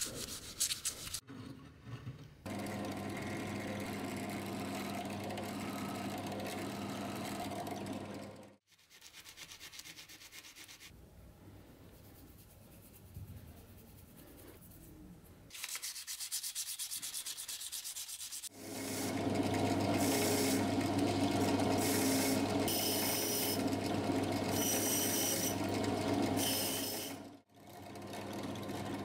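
Hand-finishing sounds on a small brass spoon: rubbing and brush scrubbing, alternating with a bench drill press motor running steadily for long stretches. The drill press spins an abrasive stone bit, and its run near the end stops abruptly.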